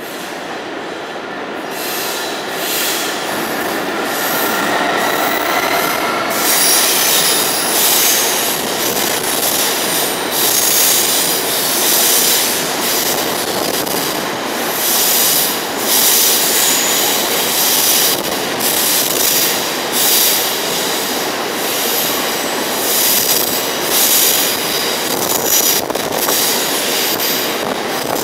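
Freight train headed by Class 66 diesel locomotive 66751 running through: it grows louder over the first few seconds as it approaches, then a long rake of wagons passes close by, wheels squealing and clattering in a repeated rhythm over the rail joints.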